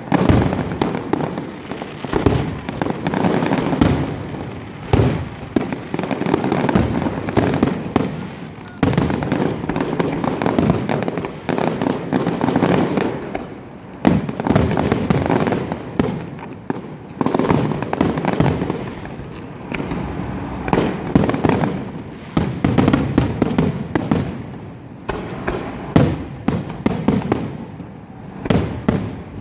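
Fireworks display: aerial shells bursting one after another in dense, overlapping volleys, swelling and easing in waves.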